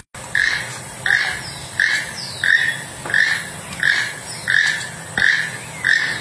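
Keel-billed toucan calling: a short, frog-like croaking note repeated at a steady pace, about three calls every two seconds.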